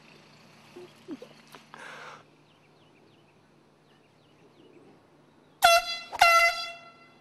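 Air horn blasted twice in quick succession, loud, on one steady pitch: a short blast about five and a half seconds in, then a slightly longer one right after.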